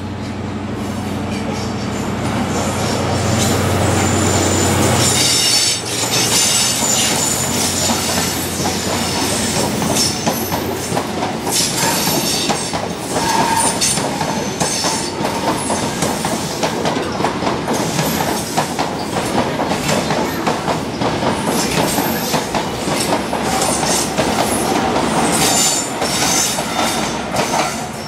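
East Coast passenger train passing close by: a steady low hum that grows louder over the first five seconds as the front of the train approaches, then a fast, continuous clatter of wheels over rail joints as the coaches go by, with occasional brief wheel squeals.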